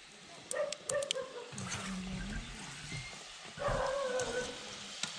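Ghughuti frying in oil in an iron kadhai over a wood fire: a faint steady sizzle with several sharp clicks of the metal strainer. A few short animal calls stand out, one about a second in and a louder one near four seconds in.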